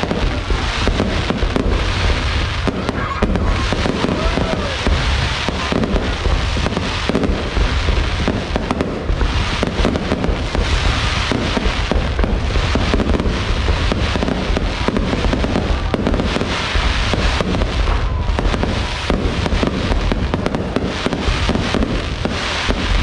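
Continuous, dense crackling and popping, many small sharp bangs in quick succession without a pause.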